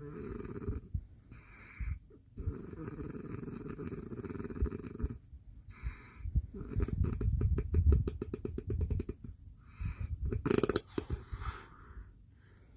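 A man snoring in his sleep: repeated breaths with a low, buzzing rasp, one of them breaking into a fast rattle for a couple of seconds near the middle, separated by short quieter breaths.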